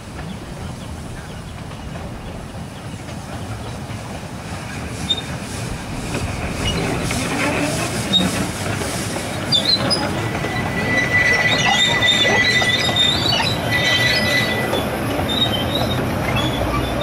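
A 12.25-inch gauge miniature steam train with its wagons approaching and passing, running louder as it nears. About two-thirds of the way in, a high, steady wheel squeal lasts about four seconds.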